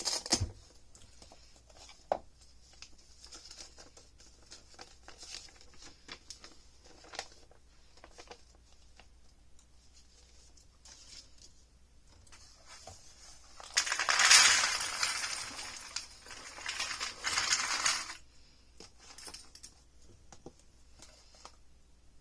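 Cardboard jigsaw puzzle pieces being handled, with scattered light clicks and taps. From about fourteen seconds in come four seconds of louder rustling and rattling, with a short break in the middle.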